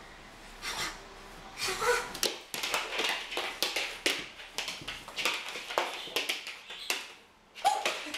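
Young Rhodesian Ridgeback play-boxing: its claws and paws scrabbling and tapping on a wooden parquet floor, with scuffs and pats of hands on fur, in a quick irregular flurry. A short vocal sound comes near the end.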